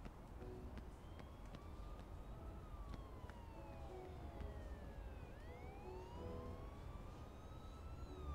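Emergency-vehicle siren in a slow wail, its pitch rising and falling about once every five seconds, over a steady low rumble.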